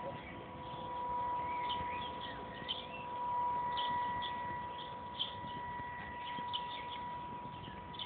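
Radio-controlled model boat's motor whining at a steady high pitch as the boat runs across the water, a little louder around three to five seconds in. Small birds chirp over it.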